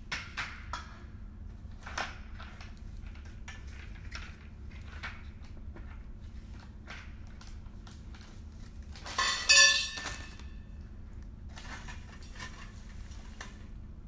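Metal tubes and plastic parts of a garment rack knocking and clinking as they are handled and fitted together, with one loud, ringing metal clang about nine seconds in.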